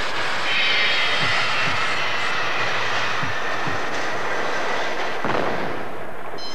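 Subway train running past at speed: a steady rush of wheel and rail noise, with a high metallic wheel squeal over the first few seconds and paired clacks of wheels crossing rail joints twice.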